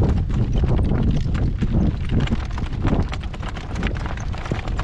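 A horse's hooves beating at a trot, with strong wind buffeting the microphone.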